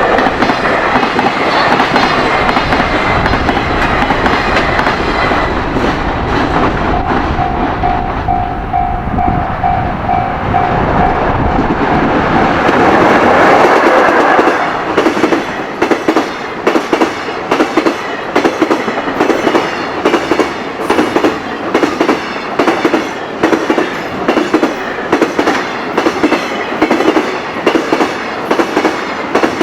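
High-speed container freight train passing at speed. The first half is a continuous loud rumble that peaks just before midway. From there on comes the regular clatter of wagon wheels over rail joints, a burst about once a second. A rapidly pulsing tone sounds for a few seconds about a quarter of the way in.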